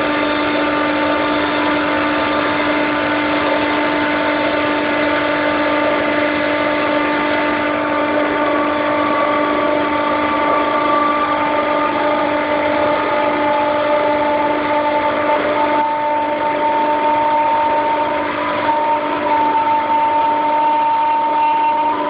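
Compressor of a Daikin (McQuay) EWLDJ235-SS chiller running, a loud steady hum with a whine above it that slowly rises in pitch; an abnormal noise from the compressor.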